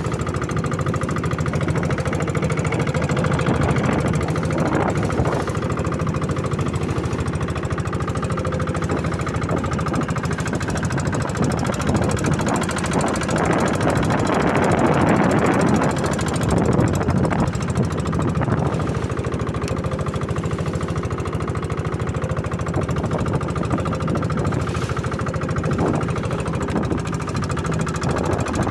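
A fishing boat's engine running steadily, with a rushing noise swelling for a few seconds about halfway through.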